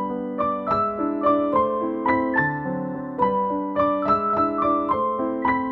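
Background music: a gentle piano melody of evenly struck notes.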